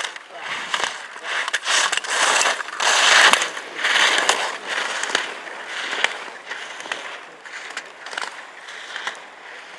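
Slalom skis carving turns on hard-packed race snow, the edges scraping in a hiss with each turn, loudest about three seconds in, with sharp knocks as gate poles are struck and spring back.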